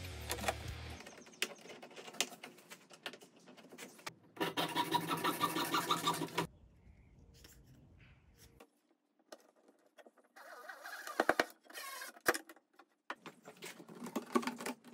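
Clear wire-reinforced flexible dust-collection hose being handled and fitted: plastic crinkling and scraping with scattered clicks, a louder stretch of scraping about four seconds in, a short near-quiet pause, then more clicks.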